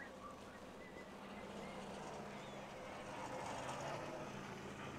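Harbour ambience: an engine running steadily, growing louder towards the end, with a few faint bird chirps.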